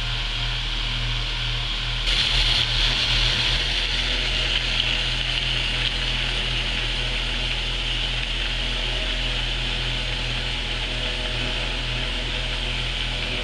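An HO scale model train running along the track: a steady mechanical whir and hiss over a constant electrical hum. The hiss grows louder about two seconds in.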